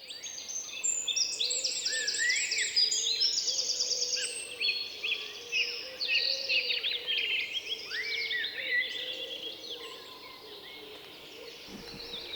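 Many songbirds singing at once, a dense chorus of overlapping chirps, trills and rising whistles. It fades in at the start and thins out near the end.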